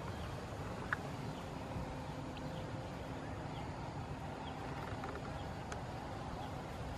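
Outdoor ambience: a steady low rumble, with faint short chirps from small birds or insects scattered through it and a single sharp click about a second in.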